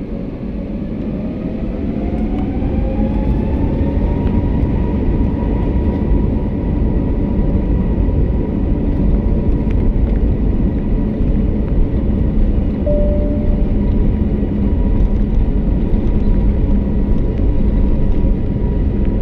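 Airbus A321's turbofan engines spooling up to takeoff power, heard inside the cabin: a whine rises in pitch over the first few seconds and then holds steady over a loud rumble that grows and stays heavy as the takeoff roll gets under way.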